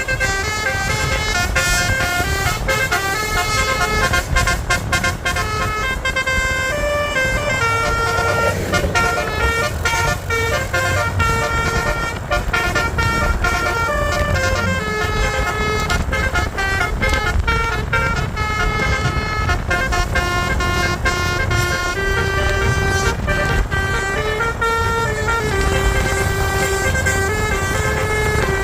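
Bus telolet horns (Basuri multi-tone air horns) playing quick, changing melodic toots, over a steady low rumble of bus engines and road noise.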